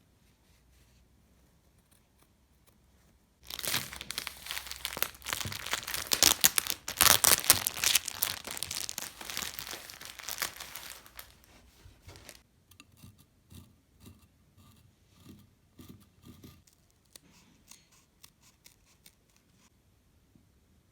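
Packaging being torn open and crinkled by hand: a few seconds in, a loud stretch of tearing and crackling that lasts about nine seconds, then softer scattered rustling.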